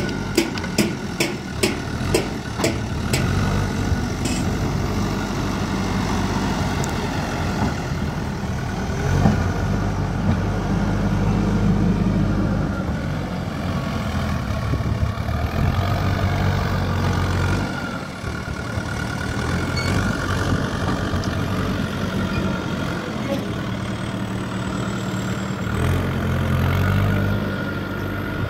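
JCB 3DX backhoe loader's diesel engine running and revving up and down as the machine drives carrying a heavy concrete pipe on its front loader, with a steady high whine over it. A run of sharp clicks, about two a second, in the first three seconds.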